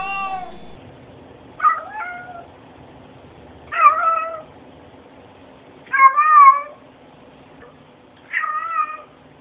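Domestic cats meowing: five drawn-out meows about two seconds apart, several rising and falling like a meowed 'hello'.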